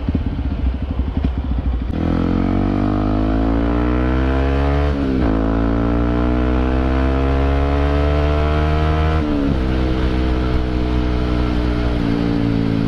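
Yamaha WR155 single-cylinder engine through a Gordon aftermarket exhaust, idling for about two seconds and then accelerating hard. It revs up through the gears, with quick drops in pitch at upshifts about five and nine seconds in, and eases off near the end.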